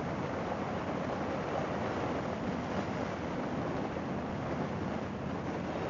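Steady wind rush and road noise of a motorcycle cruising at an even speed, with no change in pitch or level.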